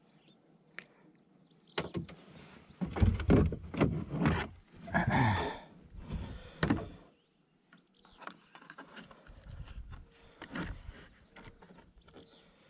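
Thumps, knocks and scraping of hands and a kayak paddle against a plastic sit-in kayak while a bluegill is handled, dense and loud from about two seconds in for several seconds, then lighter scattered knocks.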